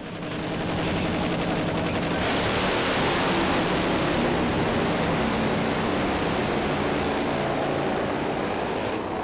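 Top Fuel drag racing motorcycles running at full throttle down the drag strip. The loud, harsh engine noise builds over the first couple of seconds, holds, and begins to fade near the end.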